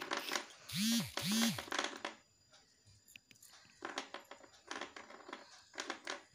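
Light clicks and scratches of hands working thread and a spoon over a metal mesh strainer pan. About a second in there are two short, loud cries, each rising and falling in pitch.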